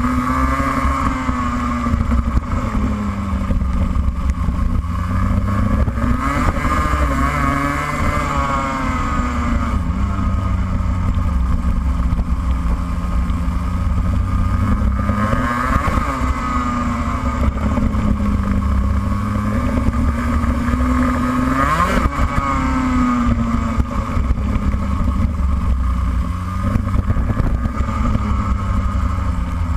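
Racing kart engine heard from on board at racing speed, its pitch falling and climbing again several times as the throttle comes off and on through the corners, over a steady low rumble.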